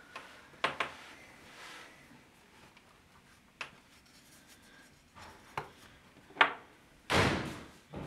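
Small knocks, taps and rustles of papers and small objects being handled and set down on a wooden desk, a few sharp clicks spread through, with a longer, louder scraping noise about seven seconds in.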